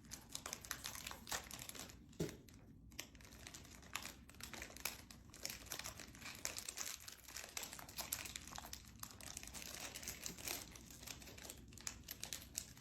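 Brownie wrappers crinkling with irregular crackles, being worked at and pulled open by hand; the packaging is hard to open.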